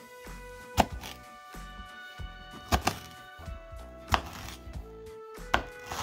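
Kitchen knife cutting through a peach and knocking on a plastic cutting board: four sharp knocks a second or two apart, over background music.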